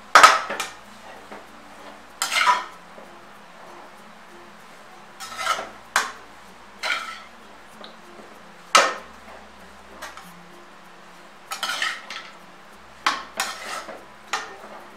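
Metal slotted spatula scraping and clanking against a metal kadhai as stir-fried noodles are tossed and mixed. The strokes are short and irregularly spaced, with gaps between them.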